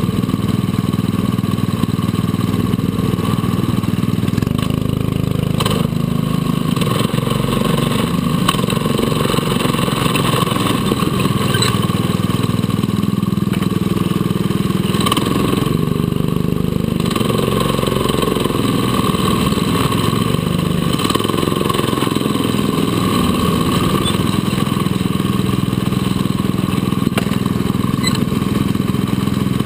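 Go-kart engines running at low revs, a steady drone of several overlapping engine pitches.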